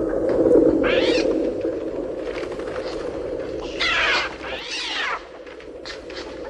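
Electronic imitation of a flock of birds played on a Mixtur-Trautonium: a dense, grainy low rush with three shrill screeches that rise and fall in pitch, one about a second in and two close together around four to five seconds. The low rush drops away shortly after the last screech.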